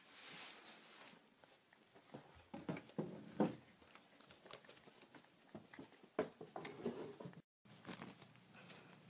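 Faint, scattered rustling and scuffing of paper as a cat with a paper bag over its head shuffles backwards on carpet. The sound breaks off for a moment about seven and a half seconds in, then soft rustling resumes.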